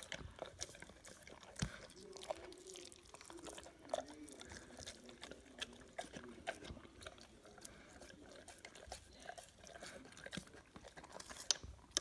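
A St Bernard eating raw minced meat from a steel bowl: soft wet chewing and smacking, with scattered irregular clicks.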